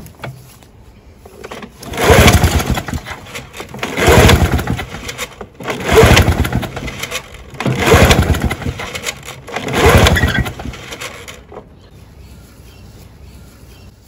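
Victa 160cc two-stroke lawnmower engine being pull-started five times, about two seconds apart. Each pull spins it over briefly, but it never catches, which the owner puts down to a plug wet with fuel, probably a little flooded.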